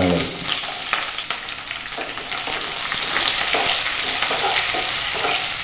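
Hot oil sizzling steadily in a nonstick pan as sliced green chillies are tipped in and stirred with a spatula among curry leaves and mustard seeds, the tempering for a potato masala.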